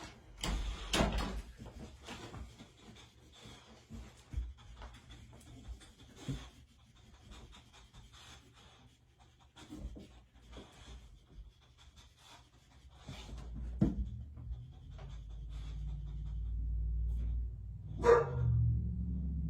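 Dog panting while it searches, with many scattered short clicks and taps. A low rumble builds through the second half, and there is a single sharp knock near the end.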